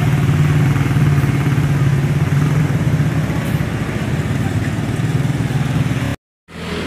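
Street traffic: a large bus's engine running as it turns, with motorbikes passing close by, a steady low engine hum that slowly fades. About six seconds in it cuts off to a brief silence, then quieter street sound.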